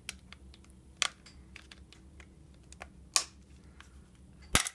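A flathead screwdriver pries at the plastic hook latches of a Maxtor OneTouch III Mini external hard drive case, making scattered small clicks and taps. Sharp plastic snaps come about a second in and again around three seconds in, and the loudest, a quick double snap near the end, is the latch breaking free.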